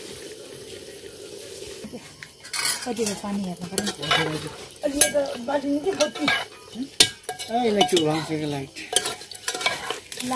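Spoon stirring and scraping in a cooking pot amid sizzling, with clinks of utensils from about two seconds in. Voices are heard faintly in the background.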